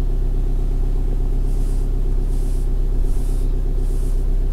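Steady engine hum and road noise inside the cabin of a moving Subaru STI, the flat-four engine holding an even low drone at cruising speed. Faint soft swishes repeat about once every three quarters of a second through the middle.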